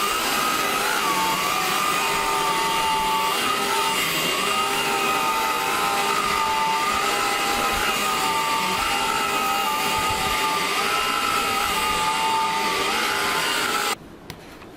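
Craftsman V20 cordless stick vacuum running while vacuuming: a steady whir with a high motor whine that wavers slightly in pitch. It is switched off near the end and cuts out suddenly.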